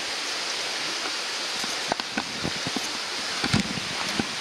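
Mountain stream running steadily, a continuous rush of water. A few short clicks and knocks sound over it, the loudest a little after three and a half seconds.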